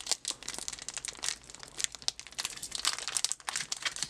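Plastic blister packaging and its cardboard backing being crinkled and torn open by hand: a dense run of irregular sharp crackles and rustles.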